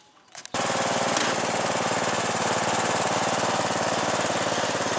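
Riding lawn mower engine running steadily with an even, fast pulse, cutting in abruptly about half a second in; a few faint clicks before it.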